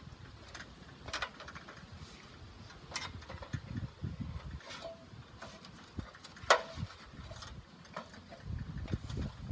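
Scattered knocks and clanks from an aluminium ladder and a plastic bucket as someone climbs down, the loudest knock about two-thirds of the way in, over a low rumble of wind on the microphone.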